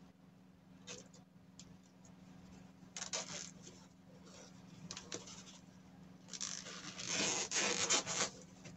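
Cloth rustling and the scrape of a zipper slider being worked onto a zipper tape, in short bouts with a few light clicks, the busiest stretch near the end. A faint steady low hum runs underneath.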